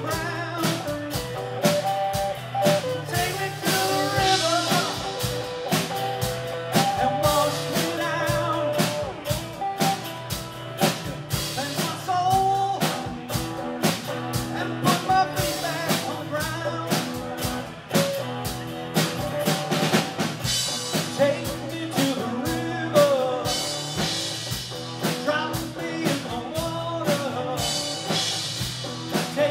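Live band music through a club PA: a singer over acoustic and electric guitars with a drum kit keeping a steady beat.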